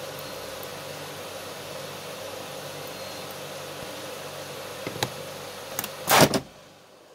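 Desktop vacuum former running with a steady hum, a couple of clicks near the end, then one loud clunk about six seconds in as the heated frame is pulled down over the mould; the hum drops away after it.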